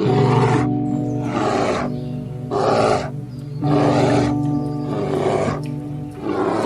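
An animal's rough, growling calls, about six of them roughly a second apart, over background music with sustained chords.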